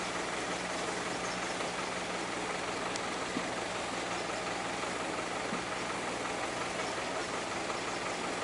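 A diesel engine idling steadily with an even low hum, with one faint tick about three seconds in.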